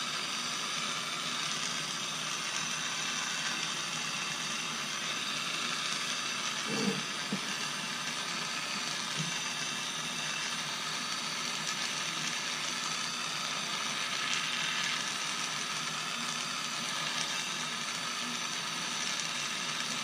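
Small hose-fed jeweler's gas torch burning with a steady hiss while preheating sterling silver beads on a soldering brick, with one brief knock about seven seconds in.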